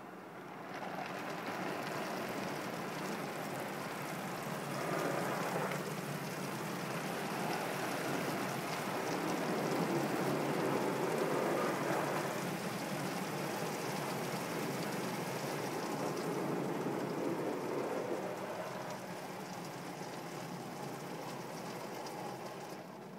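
Car wash water spray hitting the car's windshield and body, heard from inside the cabin as a heavy rain-like patter. It comes on about a second in, is heaviest in the middle and eases off near the end.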